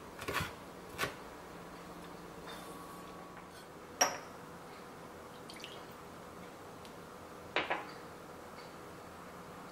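Kitchen knife chopping green chili peppers on a wooden cutting board, two strokes in the first second. Then small glass bowls clinking on the counter: one sharp clink about four seconds in and a quick double clink near the end.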